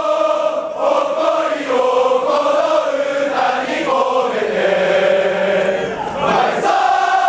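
A large crowd of football supporters singing a chant in unison, men's and women's voices together, in repeated sung phrases with short breaks between lines.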